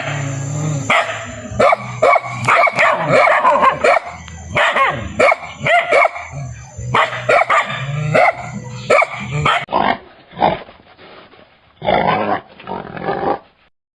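Dog barking over and over in short, sharp barks. About ten seconds in, the sound changes to a duller recording of fewer, spaced-out calls.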